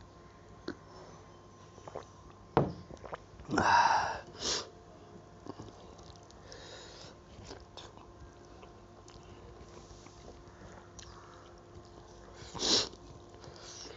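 A man sniffing hard while eating a fiery chilli meal: two loud sniffs close together about four seconds in and another near the end, from a nose running with the chilli's heat. Small clicks of eating and of fingers on the plate lie between them.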